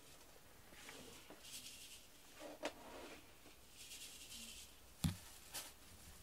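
Faint soft rustling and light scratching as cats shift their fur against each other, with a sharp knock about five seconds in.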